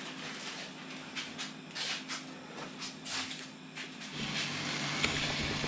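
A few soft, irregular clicks and rustles. About four seconds in, a butane cartridge camping stove's burner starts to be heard running with a steady low rushing sound.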